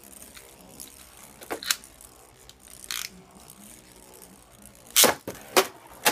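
Beyblade parts clicking and clacking as they are handled and fitted together: a few sharp clicks scattered through, the loudest ones coming close together near the end.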